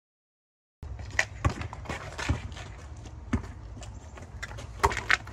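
Silence, then about a second in a basketball bouncing and sneaker footsteps on a driveway: a run of sharp, irregular knocks over a steady low rumble.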